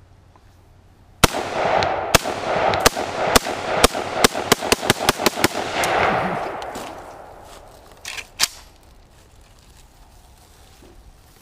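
AK-47 rifle fired in a string of about fourteen shots. They start about a second apart and quicken to several a second, over a loud rushing noise that fades out over a few seconds. Two smaller knocks follow near the end.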